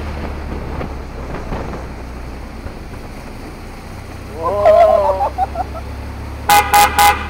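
Steady low running noise of a moving road vehicle. Near the end a horn gives three short, evenly spaced beeps. About midway comes a brief wavering voice-like sound.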